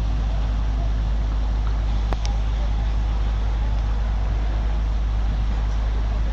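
Heavy diesel earthmoving machinery running steadily with a deep, constant rumble, with a short sharp click about two seconds in.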